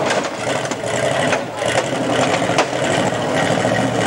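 GAZ-69 off-road trial car's engine running at low speed as it crawls over a boulder, with a couple of sharp knocks about one and a half and two and a half seconds in.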